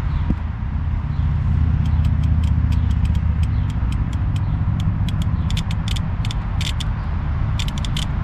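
Toro Z587L zero-turn mower's engine running steadily with a low rumble. From about two seconds in, a quick, irregular series of sharp clicks joins it and grows denser toward the end.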